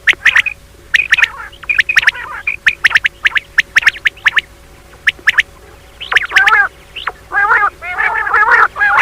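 Female common quail mating calls: quick runs of short calls, a pause of about a second and a half past the middle, then denser calling in the last three seconds.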